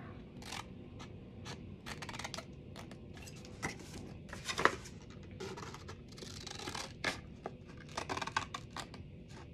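Large scissors cutting through paper in a run of short, irregularly spaced snips, with the paper rustling as it is turned.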